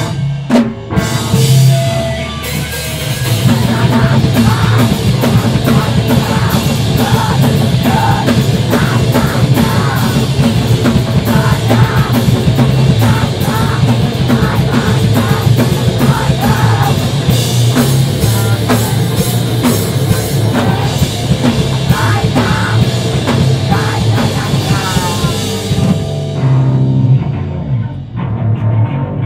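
Live screamo band playing loud and fast: distorted electric guitars over a pounding drum kit with crashing cymbals. The cymbals drop out about three seconds before the end, leaving the guitars ringing.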